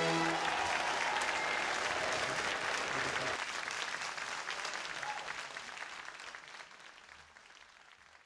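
Audience applauding, a dense patter of many hands clapping that fades away gradually to near silence.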